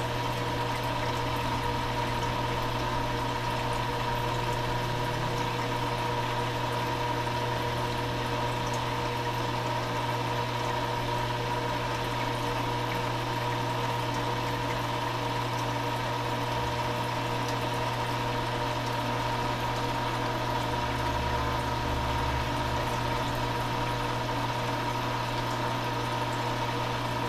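Saltwater aquarium sump running: the pump's steady low hum under the continuous rush and trickle of water through the sump, with a thin steady whine above it.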